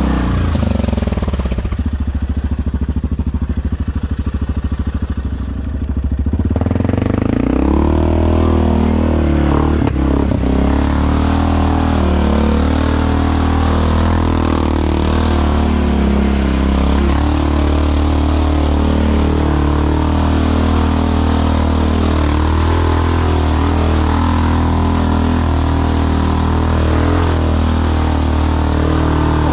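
ATV engine running as it is ridden, a steady low drone with the revs rising and falling. From about two seconds in the sound goes duller and the engine's firing pulses stand out. It opens up again about six seconds in, with the revs climbing.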